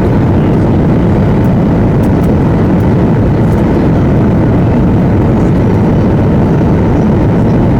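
Steady cabin noise of a Boeing 737-800 in flight on approach: an even rush of airflow and CFM56 engine noise, heavy in the low end, heard from a window seat inside the cabin.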